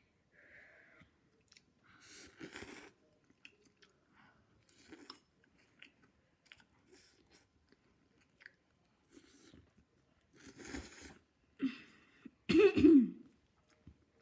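Eating spicy noodles close to the microphone: chewing and mouth noises in short bursts, with a loud cough near the end.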